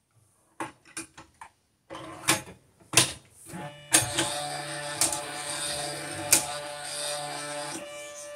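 Videojet DataFlex Plus 6420 thermal transfer printer powering up and running its startup calibration: a few scattered clicks, then from about four seconds in a steady whir of its motors broken by several sharp clicks.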